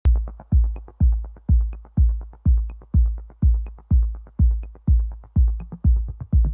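Electronic dance music with a heavy kick drum about twice a second and quick, light hi-hat ticks between the beats.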